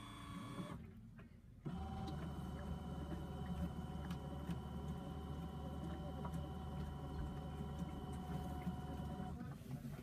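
Small electric motor of a mini LG front-loading demo washing machine running with a steady hum and a few held tones. It stops briefly about a second in, starts up again sharply, runs evenly, and cuts off just before the end.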